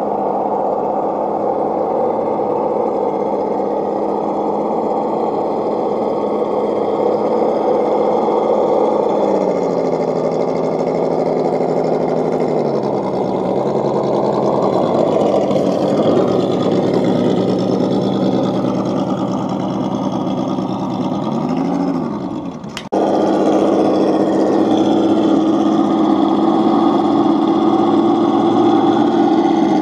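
Motor and gear whine of a scale RC rock crawler truck, rising and falling in pitch with the throttle as it crawls over rocks. It breaks off abruptly about 23 seconds in and resumes as a steadier, higher whine.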